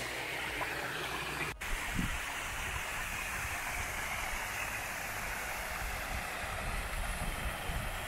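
Small waterfall cascade and stream rushing steadily, broken by a momentary drop-out about one and a half seconds in.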